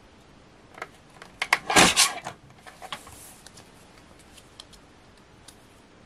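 Hunkydory paper trimmer cutting card: a few clicks, then a short rasp as the blade is run through, about two seconds in. Light ticks and paper handling follow as the trimmed piece is lifted away.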